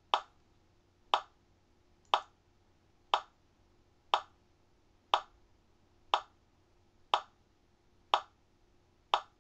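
A clock ticking steadily, one sharp tick a second.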